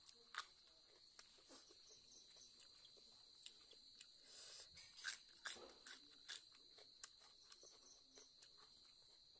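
Faint chewing and crunching of raw vegetables eaten by hand, with a few sharp crunches and mouth clicks about five to six and a half seconds in. A steady high-pitched insect chirring runs underneath.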